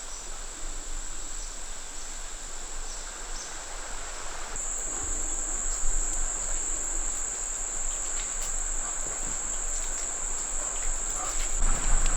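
Insects trilling, one steady high continuous note that grows louder about four and a half seconds in, over a faint haze of outdoor noise.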